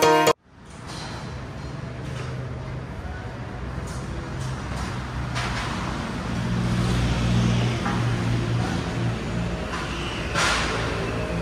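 Intro music cuts off just after the start. Street ambience then fades in, with a motor vehicle engine running and growing louder about six seconds in.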